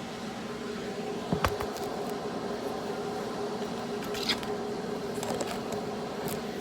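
A steady low mechanical hum with a few held tones, broken by a couple of short light clicks about a second and a half in and again past four seconds, with fainter ticks near the end.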